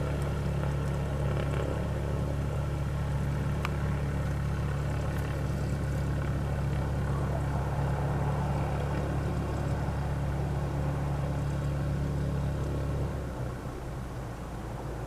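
An engine idling with a steady low hum that drops away sharply about thirteen seconds in, leaving a quieter drone.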